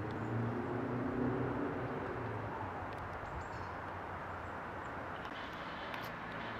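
Street ambience: a steady hum of traffic, with a vehicle's engine passing in the first couple of seconds.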